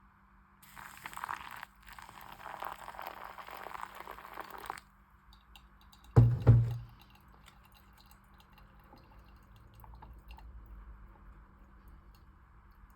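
Packaging being handled during a laptop unboxing: a rustle of paper or plastic wrap for about four seconds, then two heavy thumps a moment apart.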